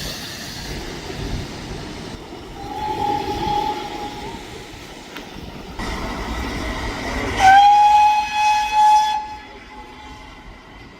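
Train horn sounding twice over the rumble of the train: a shorter, softer blast about three seconds in, then a louder, longer blast about seven seconds in that fades out after about two seconds.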